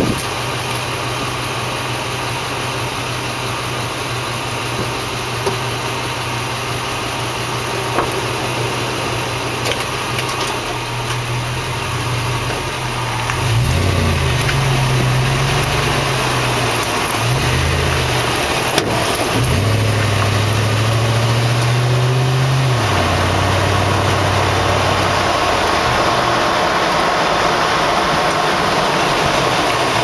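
2004 Toyota Tundra heard from under the rear of the truck: the engine hums at idle, then rises and falls as the truck pulls away, with tyre and road noise growing louder. A little past halfway comes one sharp, loud pop from the rear end as the truck turns right through a shallow gutter dip: the rear-end clunk common on these trucks, whose cause the owner has not found.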